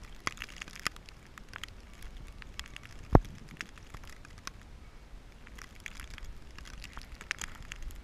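Crunching and crackling of deep fresh snow as the Siberian husky bounds through it, a scatter of short crisp crunches. One loud dull thump stands out about three seconds in.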